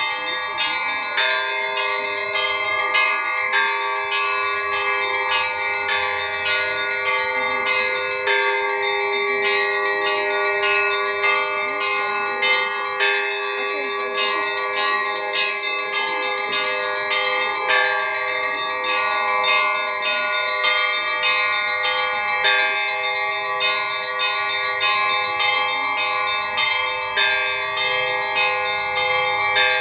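Church bells ringing an Easter peal: several bells of different pitches struck in a quick, continuous rhythm, their tones ringing on over one another.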